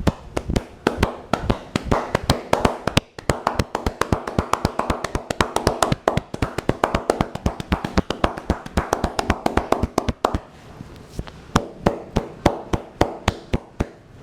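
Rapid rhythmic tapping of a masseur's hands on the head during an Indian head massage. The sharp slaps come several a second, with short pauses about three seconds in and again around ten seconds in.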